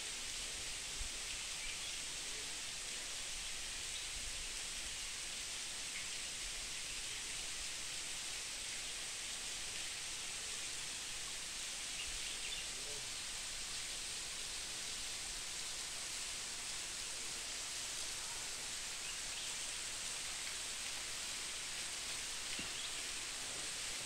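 Steady hiss of a tall, thin waterfall pouring down a cliff face, with a few faint high chirps now and then.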